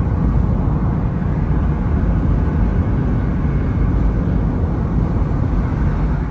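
Steady road and wind noise from a car travelling at motorway speed: an even, deep rush with no engine note standing out.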